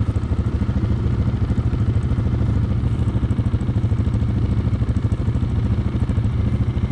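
Yamaha Grizzly 600 ATV's single-cylinder four-stroke engine idling steadily, its firing pulses quick and even.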